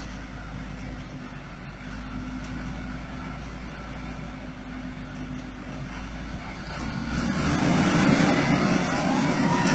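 Heavy-equipment engine running steadily, growing louder and rougher about seven seconds in.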